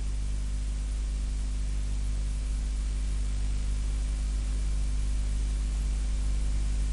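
Steady hiss with a low electrical mains hum and its overtones, unchanging throughout: the recording's own electrical noise, with no other sound.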